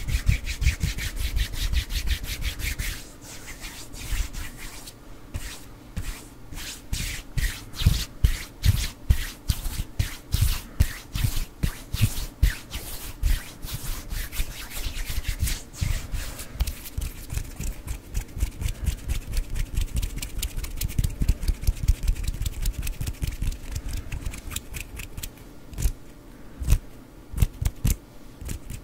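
Bare hands rubbing and brushing together close to a microphone, in a rapid run of dry swishing strokes. The strokes are busiest and loudest in the first half, soften for a while after the middle, and pick up again near the end.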